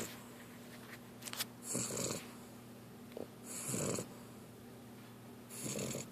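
Puppy snoring in her sleep, on her back with her mouth open: three snores about two seconds apart, each a low snore with a breathy hiss.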